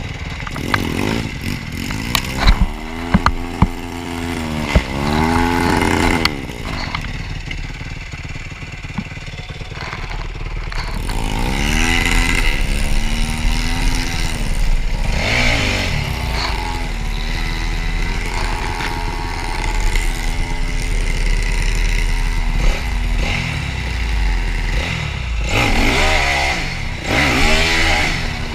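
Yamaha YZ250F dirt bike's single-cylinder four-stroke engine revving up and falling back again and again while riding, with scattered knocks and clatter from the rough, muddy trail.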